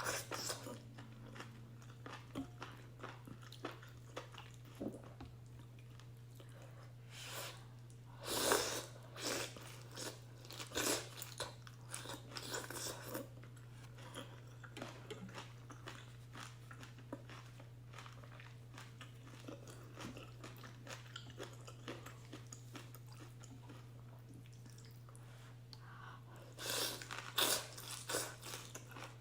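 Close-miked mouth sounds of a person eating beef and egg ramen: chewing, biting and wet smacks, busier at about seven to thirteen seconds in and again near the end. A steady low hum runs underneath.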